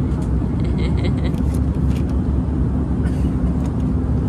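Jet airliner cabin noise in cruise: a steady, even low rumble with a constant hum, and a few faint light clicks.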